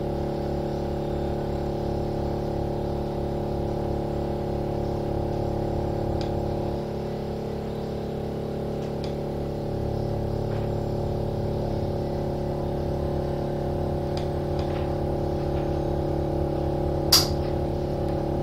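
Steady mechanical hum with a fast low throb, heard inside a passenger train, with a sharp click about seventeen seconds in.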